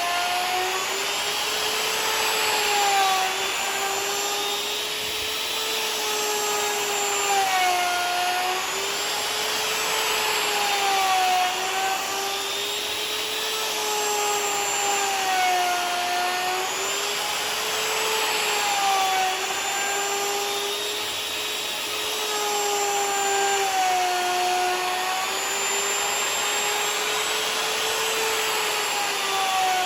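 Electric router milling a walnut table top: a steady high whine whose pitch sags and recovers about every four seconds as the bit takes load.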